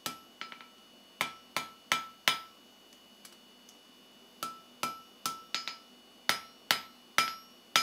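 Hand hammer striking a hot steel bar on an anvil to taper it, each blow sharp with a short metallic ring. A few blows, a pause of about two seconds, then a longer steady run of about three blows a second.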